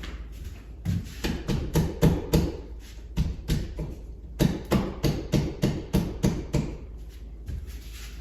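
Repeated sharp knocks on a TV wall mount bracket against the wall, about three or four a second in three runs, as the bracket is tapped into a level position.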